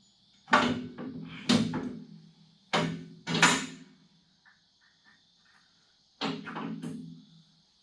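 A series of heavy metal clanks and bangs, five in all, each ringing briefly before dying away: steel parts of a tractor loader being knocked and set in place.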